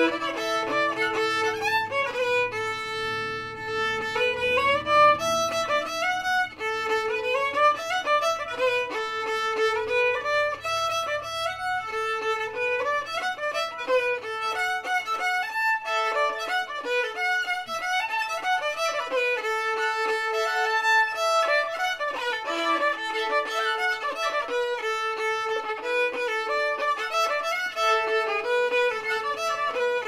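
Fiddle playing a traditional Scottish tune in bagpipe style, a continuous brisk run of short notes that keeps returning to one held note.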